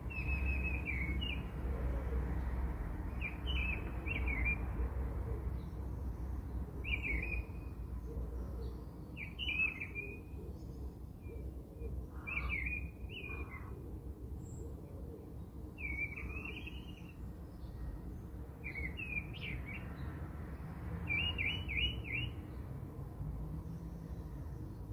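Small songbird chirping: short phrases of a few quick notes, repeated every couple of seconds, over a low steady rumble.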